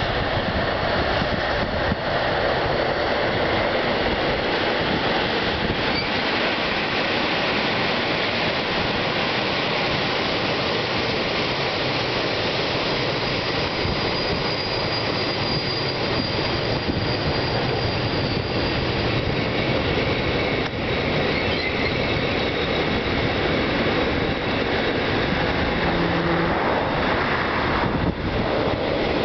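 Freight train of flat wagons and tank wagons rolling past at speed: a steady rush of steel wheels on rail. A faint high wheel squeal comes in about halfway through.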